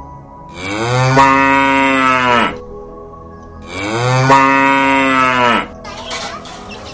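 An animal calling twice: two long, low calls of about two seconds each, the pitch rising at the start of each call and dropping away at the end.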